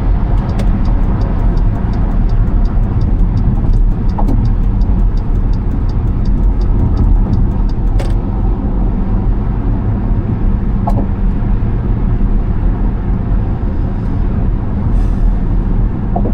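Steady low road and engine rumble of a car cruising at freeway speed. A faint regular ticking, about three a second, runs through the first half, with a few light clicks.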